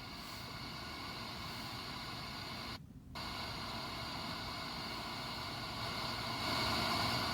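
Steady hiss of noise like static, cutting out for a moment about three seconds in and growing a little louder near the end.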